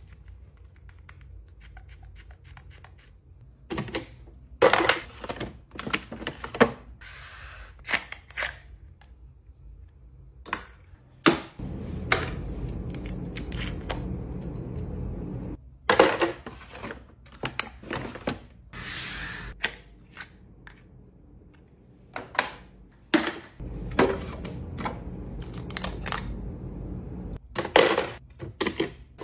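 Small plastic skincare tubes, caps and packaging handled by hand against acrylic organizer shelves: a string of sharp clicks and taps, with two longer stretches of steady low rustling.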